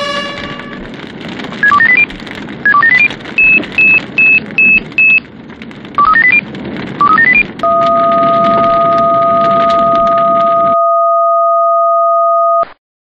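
Electronic alert beeps: short beeps climbing in pitch in quick runs, five equal high beeps, two more rising runs, then one long steady tone that cuts off suddenly.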